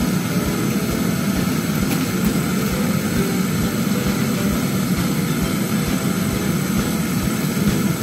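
Brazing torch flame burning steadily as it heats the copper charging line (process tube) to seal it off after the refrigerant charge.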